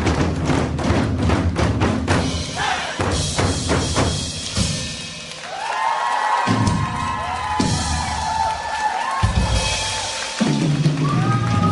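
Live band music: rapid drumming for the first few seconds, then sustained, gliding melody notes over bass and drums.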